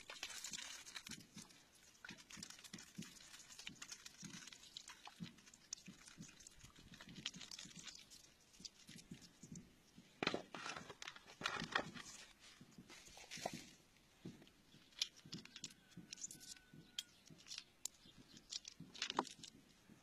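Rough stones clicking, crunching and scraping together as they are shifted about in a hand, in faint irregular strokes.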